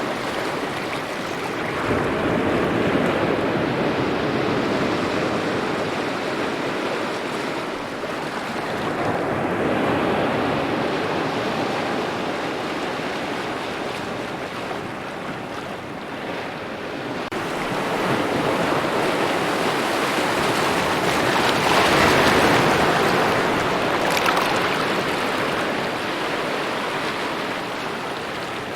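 Small waves lapping at a shoreline, a steady wash that swells and eases every several seconds, with the biggest swell about two-thirds of the way through.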